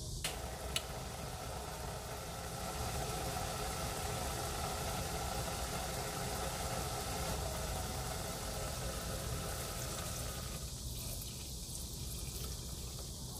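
Saucepan of vegetable and white-wine broth simmering: a steady bubbling noise over a low hum, with two light clicks about a second in. The bubbling thins out about two-thirds of the way through.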